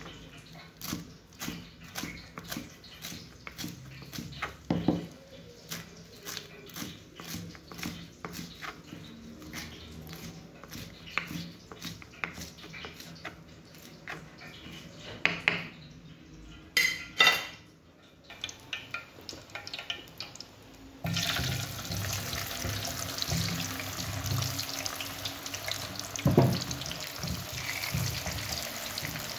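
A knife chopping parsley on a wooden cutting board: quick, regular taps, a couple of louder knocks a little past halfway. About two-thirds of the way in it switches abruptly to the steady sizzle of potato sticks frying in hot oil in a pan.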